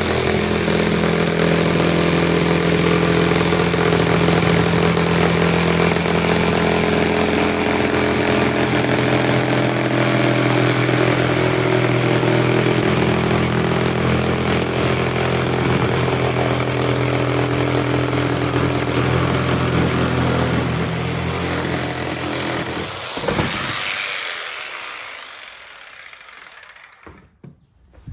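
Electric power saw running steadily under power, then switched off near the end and spinning down as its motor slows.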